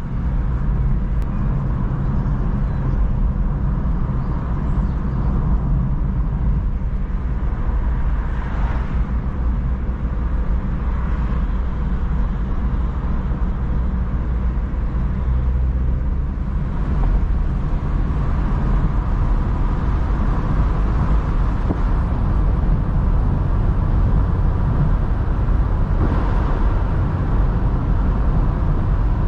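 Mazda MX-5 NC's 1.8-litre four-cylinder petrol engine running steadily at a calm cruise, heard from the driver's seat of the open-top roadster with tyre and wind noise.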